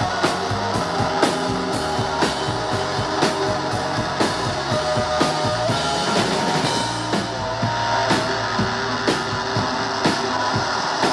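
Rock band playing live: distorted electric guitars and bass over a drum kit keeping a steady beat with cymbal and snare hits, an instrumental passage without vocals.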